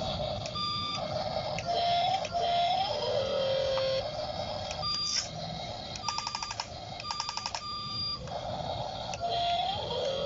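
Toy remote-control excavator playing electronic sound effects through its small speaker: a run of beeps and short tones with a few brief rising glides, and two bursts of rapid beeping about six and seven seconds in.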